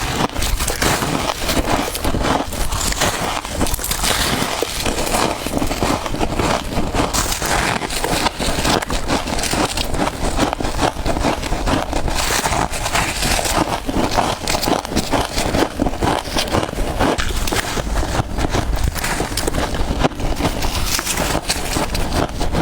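Soft freezer frost being bitten and chewed close to the microphone: dense, continuous crunching and crackling.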